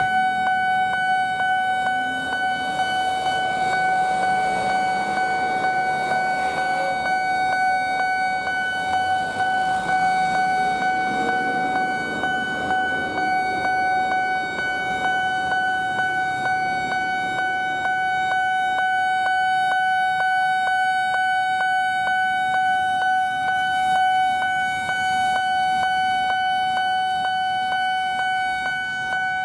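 Railway level-crossing warning alarm sounding continuously with a steady electronic tone pulsing at an even beat, over street traffic. It signals the barrier closing for an approaching train.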